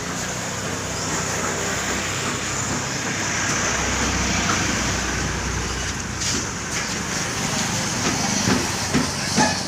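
Steady road traffic noise, with a low vehicle rumble swelling in the middle and fading again.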